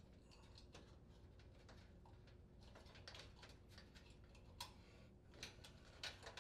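Near silence with faint scattered clicks and ticks of wires, connectors and a plastic wire clip being handled as the wires are reconnected to the light sockets, a few slightly sharper clicks near the end.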